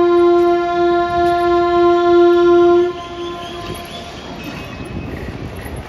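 WAG-7 electric locomotive's air horn sounding one long steady blast that cuts off about three seconds in, trailing a short echo. It is followed by the quieter, steady noise of the moving freight train.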